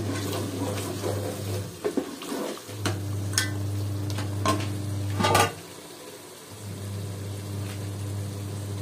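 Wooden spoon stirring a thick tomato-and-potato masala as it fries in an aluminium pot, scraping and knocking against the pot's side, with a sharp knock about five seconds in. A steady low hum runs underneath and drops out twice.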